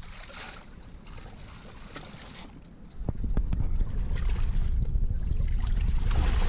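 Seawater sloshing and surging in the gap between concrete blocks at the foot of a harbour wall. About three seconds in, wind starts buffeting the microphone and becomes the loudest sound.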